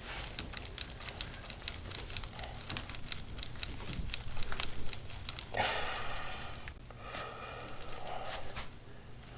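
Rustling and crinkling handling noise with many small clicks from hands working over a patient's back on a treatment table, then two longer breathy rushes in the second half.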